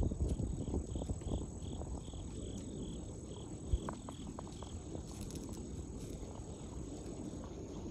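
An insect chirping: a short high chirp repeated evenly about three times a second, stopping a little past halfway. Under it are low rustling and handling noise, with one sharp click near the middle.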